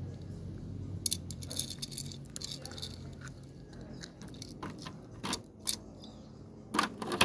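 Toy cars and their plastic packaging being handled: a run of crinkly rustles and small clicks, then a few separate sharp clicks near the end.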